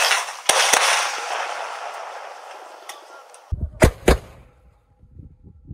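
Military truck-mounted salute launchers firing festive salute charges: a loud hissing burst with several sharp cracks that fades over about three seconds. Then two loud shots in quick succession over a low rumble.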